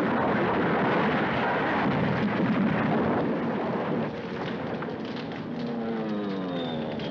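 An aircraft crashes and explodes: a long, loud blast of noise that eases about four seconds in. After that an aircraft engine drone comes in, its pitch slowly falling.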